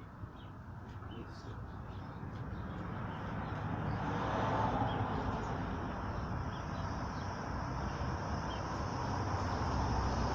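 Background traffic noise from a passing vehicle, a steady rumble that swells gradually over the first few seconds and then holds, with a few faint bird chirps.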